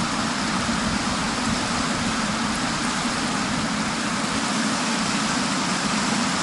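Steady rush of stream water running over stones, an even, unbroken noise.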